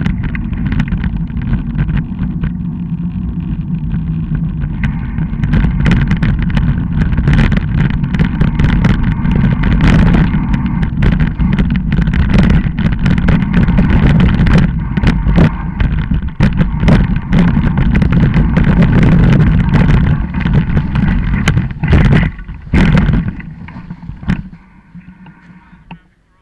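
Bicycle ridden fast over a bumpy woodland dirt trail, heard on board: a steady rumble of tyres and wind buffeting the microphone, with constant rattling and knocks from the rough ground. Near the end come a couple of hard knocks, and then the noise dies away as the bike slows to a stop.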